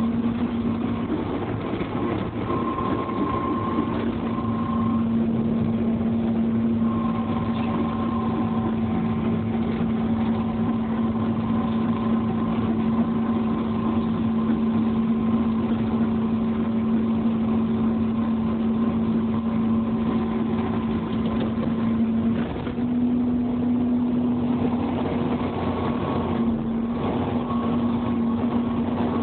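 Big excavator's diesel engine running steadily while the machine travels, heard from inside the cab, with a higher whine that comes and goes. The engine note steps up a little about 22 seconds in.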